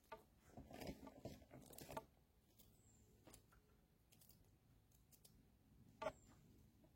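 Near silence, with faint scattered clicks and rustling in the first two seconds and a single sharp click about six seconds in.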